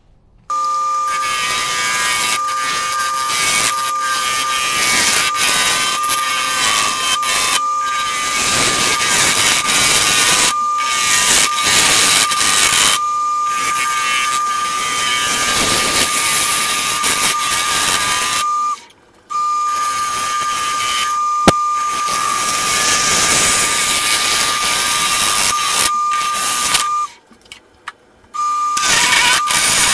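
Wood lathe running with a steady high whine while a freshly sharpened chisel cuts the spinning segmented canary wood and bloodwood blank, giving a loud rushing hiss of shavings. The sound breaks off briefly twice, around 19 seconds and again near the end.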